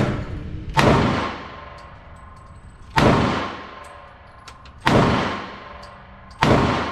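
.40 calibre semi-automatic pistol fired four times at a slow, steady pace, about two seconds between shots. Each shot is a sharp crack followed by a long echo off the indoor range's block walls.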